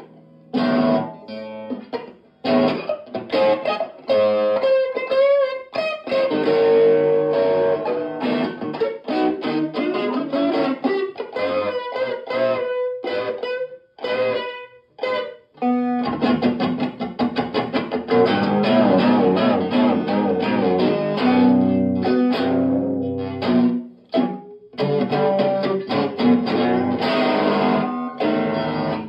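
Electric guitar played through a small practice amp: choppy riffs and strummed chords broken by short pauses, with some wavering, bent notes a few seconds in and denser strumming in the second half.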